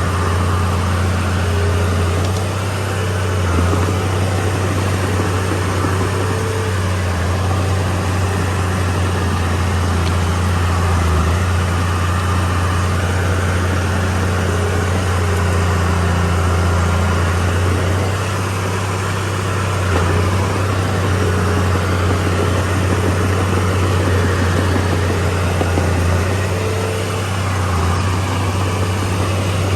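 Heavy diesel engine of earthmoving machinery running steadily, a deep hum that swells and eases slightly as it works.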